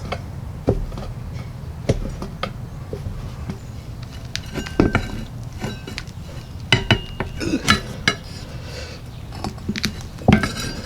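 Pry bar knocking and scraping against a lawn-tractor wheel rim while a new tire's bead is pried down around its edge: irregular metallic clinks, some ringing briefly.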